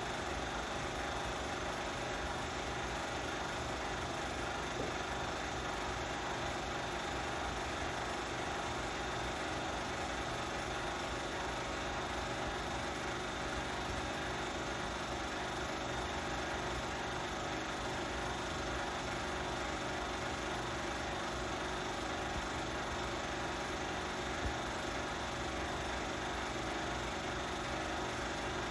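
Steady mechanical whir of a running film projector, unchanging, with a constant low hum.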